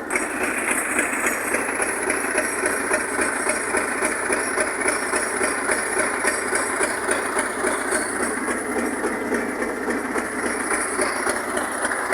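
An engine idling steadily, with an even, unchanging level.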